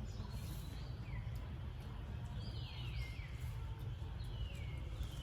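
A string of short, high calls, each falling sharply in pitch, some in quick pairs, over a steady low rumble.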